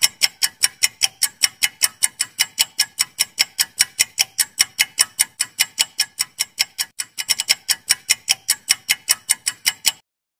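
Quiz countdown-timer sound effect: clock-like ticks, about five a second, running for ten seconds and then stopping suddenly.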